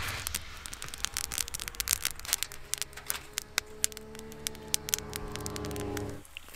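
Knife cutting into a banana through its peel over aluminium foil: a quick run of small sharp clicks and crinkles. Under them is a steady low hum, joined about halfway in by a steady pitched drone; both cut off abruptly near the end.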